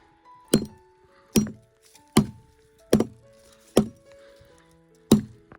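Background music with sustained notes, over six sharp chopping strikes on firewood, roughly one a second with a longer gap near the end.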